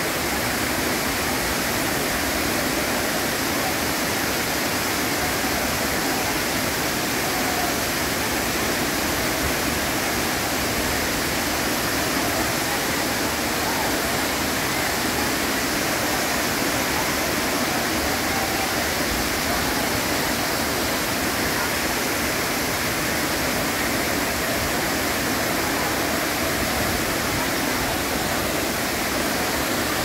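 Large waterfall cascading over a rock face: water pouring and splashing in a steady, unbroken rush.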